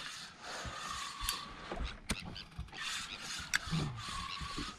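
Fishing reel being wound in to bring up a hooked fish: uneven rushing noise with a few sharp clicks.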